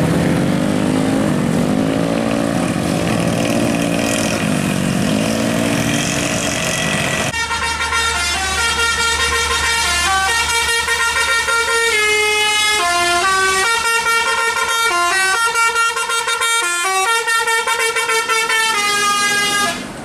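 A tour bus's multi-tone 'telolet' musical air horn, sounded while the bus coasts downhill, plays a tune of stepped notes from about seven seconds in until near the end. Before the tune, a lower pitched sound swells up and down in pitch.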